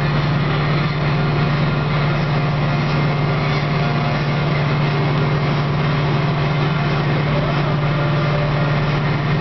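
Tractor engine running steadily at road speed, heard from inside the cab: a loud, even low drone that holds one pitch throughout, with rattle and road noise on top.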